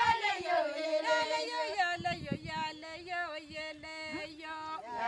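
Ilchamus women singing together unaccompanied, several voices holding notes and stepping between them, with a few dull knocks partway through.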